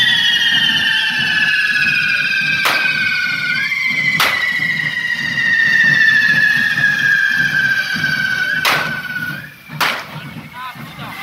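Correfoc carretilles, spark-spraying fireworks held on devils' forks, whistling with high tones that slowly fall in pitch, several overlapping. Four sharp bangs go off along the way, and the whistling dies away near the end.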